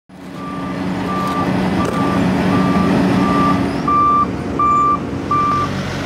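Reversing alarm beeping about eight times, evenly spaced less than a second apart on one high pitch, the last few louder, over the steady running of a heavy construction machine's engine.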